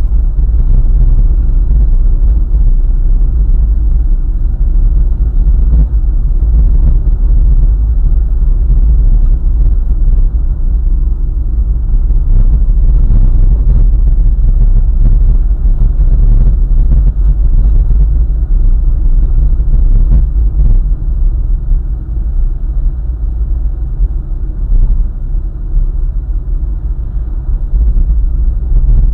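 Car driving along a highway: a steady, loud low rumble of tyres and engine, heaviest in the deep bass, dipping slightly for a few seconds past the middle.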